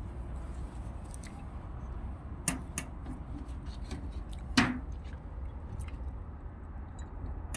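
A few sharp clicks and knocks of small hardware being handled and fitted, the loudest about four and a half seconds in, over a steady low rumble.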